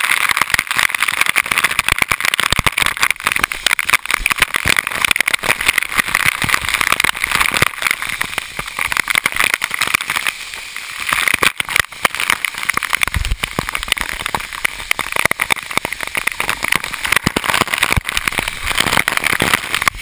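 Waterfall water pouring straight onto a waterproof camera: a dense, steady patter and crackle of water drumming on the housing, over the rush of the falls.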